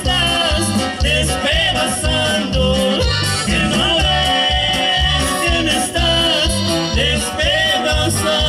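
Live band music through a stage sound system: accordion and guitars carrying the melody over a steady, pulsing bass line.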